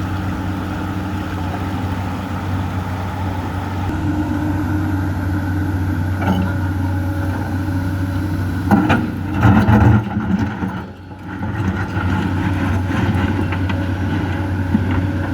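Komatsu PC200 excavator's diesel engine running steadily. Nine to ten seconds in comes a loud burst of clattering knocks, then a brief drop in level before the steady running resumes.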